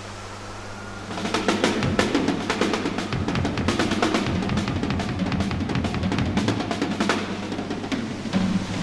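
Drum kit in an instrumental rock track: after a quieter held low note, busy drumming with rapid snare and bass-drum hits and rolls comes in about a second in and carries on.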